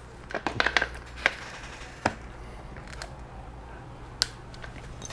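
Sharp clicks and light knocks of parts being handled as a wheel is fitted to an RC monster truck: a quick cluster of clicks about half a second in, then single clicks about a second, two seconds and four seconds in.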